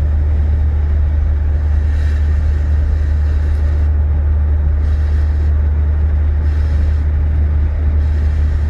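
Steady low drone of engine and road noise inside the cabin of a Toyota MR2 driving along at an even pace.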